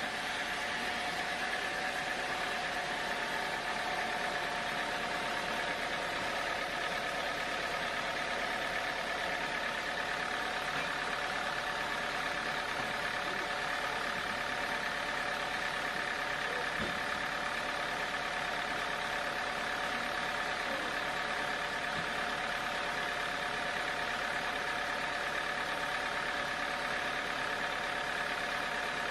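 Engine-driven band sawmill running steadily: an even machine hum with a constant whine on top, holding the same level throughout.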